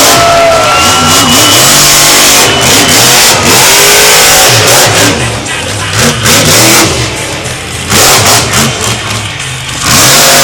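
Monster truck's supercharged big-block V8 revving hard, its pitch sweeping up and down, with the throttle lifting off several times in the second half.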